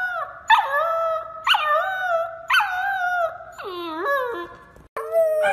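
A puppy howling in a string of short howls, about one a second, each starting high and sliding down in pitch. Near the end a different dog's howl begins.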